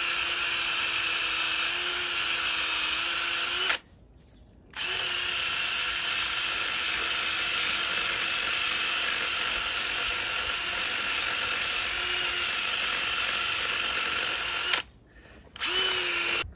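Electric pressure washer running with a steady motor whine over a hiss of spray, rinsing a wheel. It cuts out for about a second roughly four seconds in, starts again, stops near the end and briefly runs once more.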